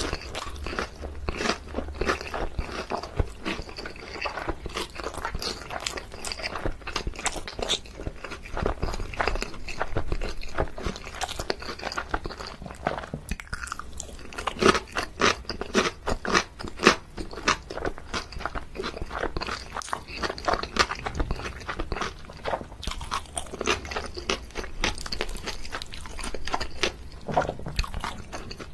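Close-miked eating: a person biting into and chewing crunchy food, a dense run of crisp crunches with no pause.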